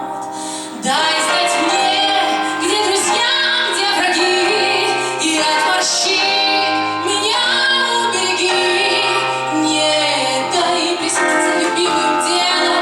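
A woman singing to an instrumental accompaniment. The music gets louder about a second in.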